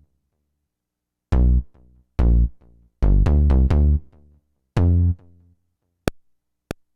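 Akai MPC keyboard playing back a beat: short, deep pitched note hits with gaps between them, followed by two sharp ticks near the end.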